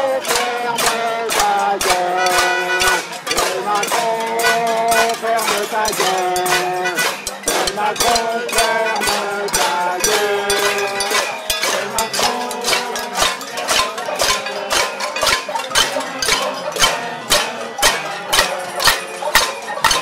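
A crowd beating saucepans and lids with spoons and ladles: fast, uneven metallic clanging. For about the first half a tune of held notes runs over it, then the clanging takes over with sharper, more regular strikes.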